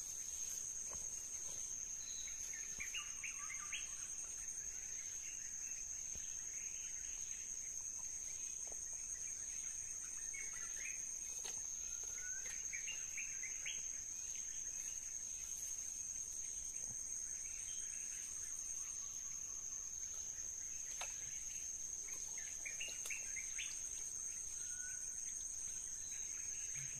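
Insects singing: one steady, high-pitched whine that does not let up, with short chirps scattered through it.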